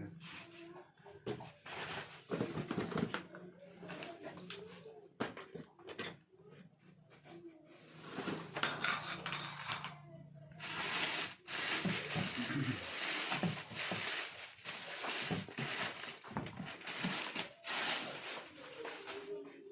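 Packaging being handled during an unboxing: irregular crackling, rustling and clicking, busier and brighter from about halfway through, over a faint steady low hum in the first half.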